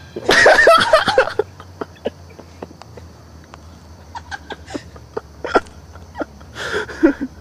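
Blow-off valve of a turbocharged Toyota MR2 venting twice over the running engine, once for about a second and again near the end, each with a hiss and a fluttering, squawking chatter.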